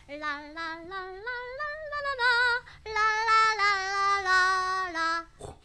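A female voice sings a short unaccompanied tune in two phrases with vibrato, the second phrase ending on a held lower note.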